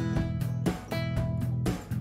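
Background music with strummed guitar.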